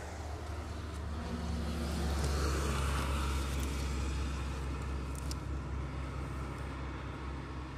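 Road traffic: a low motor-vehicle engine rumble with tyre hiss that swells about two to three seconds in and then fades, as a vehicle passes. Faint clicks of gear being handled come about five seconds in.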